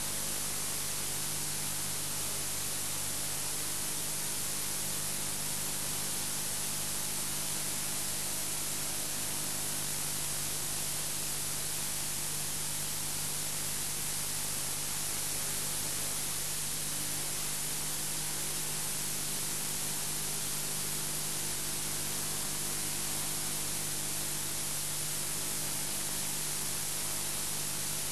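Steady hiss with a faint low hum under it: the background noise of an old analogue video recording, with nothing else heard.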